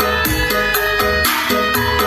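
Loud music with a heavy, steady bass beat and a repeating melody, played through a sound system being tested for its subwoofer.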